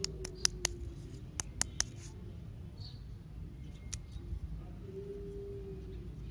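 Lollipop's twisted wrapper crinkling as fingers handle and unwrap it: a quick run of sharp crackles in the first two seconds, then scattered softer rustles.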